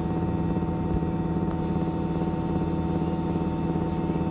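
Outdoor unit of a Daikin inverter air conditioner running under test: a steady low hum from the inverter compressor and fan, with a few constant higher tones over it.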